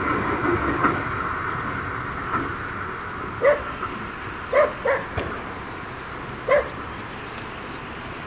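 Steam train on a 15-inch gauge line pulling away and fading into the distance, with a dog barking four times in the middle.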